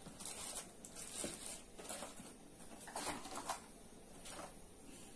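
Hands rummaging through a pile of small plastic cosmetic bottles, tubes and packaging: irregular rustling and light clattering, busiest about three seconds in.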